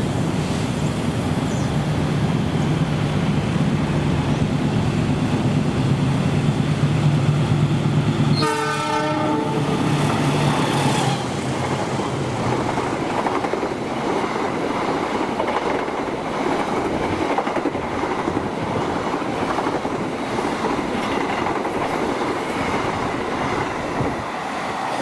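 Diesel-hauled passenger train passing through the station: a steady low engine drone, then a locomotive horn blast of about two to three seconds some eight seconds in, followed by the rumble and clickety-clack of the carriages rolling over the rail joints.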